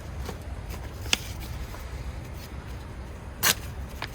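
A few brief scratches and clicks from hand-sanding a pocketknife blade with 3000-grit sandpaper, the loudest about three and a half seconds in, over a low steady rumble.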